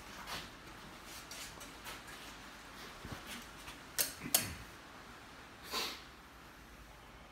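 A paintbrush working paint on canvas and on a paper palette: soft short swishes, two sharp clicks about four seconds in, then a longer swish near six seconds.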